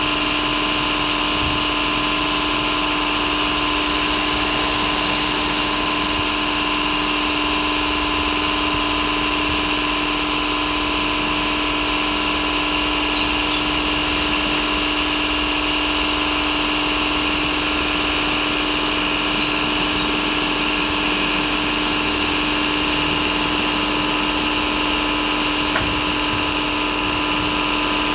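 WashTec SoftCare Pro rollover car wash machinery running steadily: a constant whine made of several held tones, with a rushing hiss underneath.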